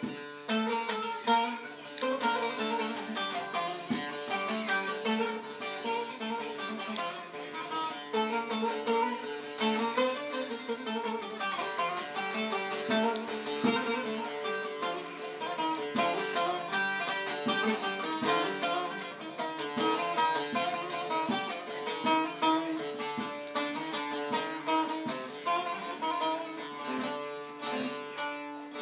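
Bağlama (saz) playing the plucked instrumental introduction to a Turkish folk song, a continuous melodic line of short plucked notes.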